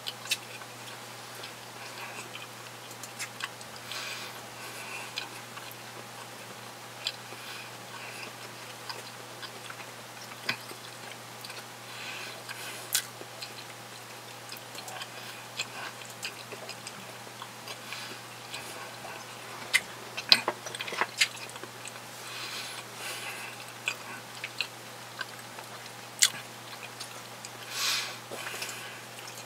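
Close-miked chewing of a sausage sandwich, with irregular wet mouth clicks and smacks, a few louder ones about two-thirds of the way in. A steady low hum runs underneath.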